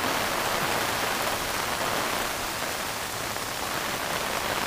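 Heavy tropical-storm rain pouring steadily, a dense even hiss of drops striking the ground and standing water.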